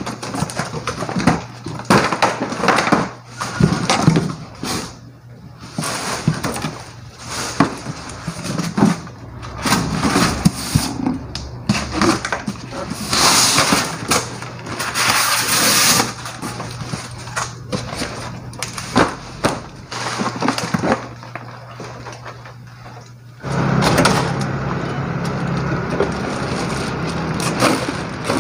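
Cardboard boxes being torn open, folded and flattened by hand, with crackling paper and plastic packaging and frequent knocks of cardboard on cardboard, over a steady low hum. About 23 seconds in this gives way abruptly to steady outdoor street noise.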